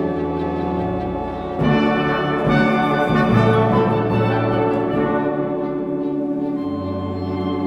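Background music of sustained, held chords that swell louder about a second and a half in, then settle back.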